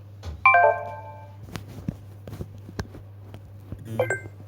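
A single piano-like chord struck about half a second in, ringing and fading over about a second, then a few light clicks and a brief second tone near the end, over a steady low hum.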